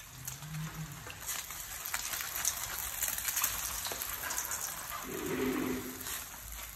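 Beaten duck eggs sizzling and crackling in a nonstick frying pan, with a wooden spatula pushing and scraping the egg in the second half.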